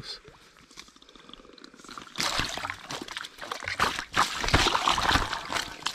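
Brown trout thrashing in a rubber landing net, splashing the water. It starts about two seconds in and goes on as a run of irregular splashes.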